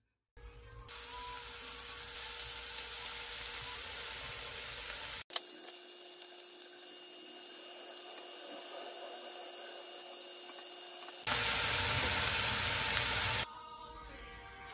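Slices of beef sizzling as they fry in a frying pan: a steady hiss, cut into three pieces with abrupt changes in level, the loudest stretch near the end.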